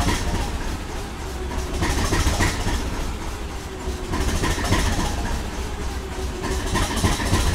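NIR 450 Class 'Thumper' diesel-electric multiple unit's English Electric 4SRKT diesel engine idling, a deep steady running that swells and eases about every two seconds.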